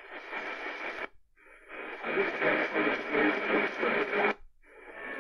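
AM medium-wave reception from the speaker of a Sangean PR-D19 portable radio as it is stepped up the band: noisy station audio that drops out briefly as the tuning moves to the next frequency, about a second in and again near the end, with a louder station coming up in between.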